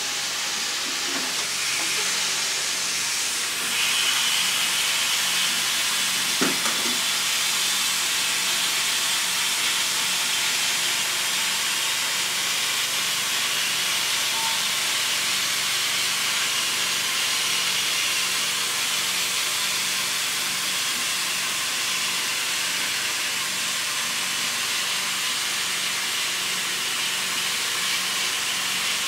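Steady hiss of air and water being sucked through a stand-on weighted carpet extraction tool and its vacuum hose as it pulls water out of soaked carpet. The hiss grows a little louder about four seconds in, with one short knock a couple of seconds later.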